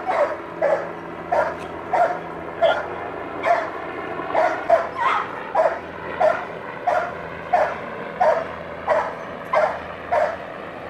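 A dog barking steadily, single barks repeated about every two-thirds of a second with hardly a break.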